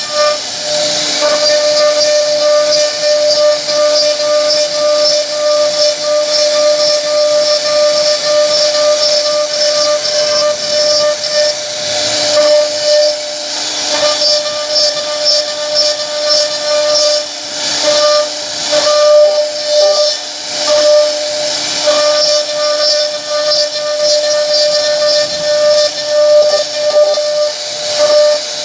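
CNC router spindle running with a steady high whine while its bit cuts into wood, over a hissing cutting noise. The whine drops out briefly a few times.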